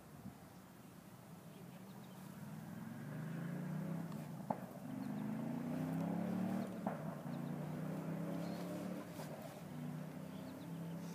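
A motor vehicle's engine running, growing louder over the first few seconds and then easing slightly, its pitch sliding up and down. Two sharp clicks come about four and a half and seven seconds in.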